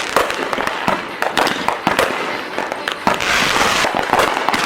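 Fireworks going off in a rapid, irregular string of loud bangs and crackles.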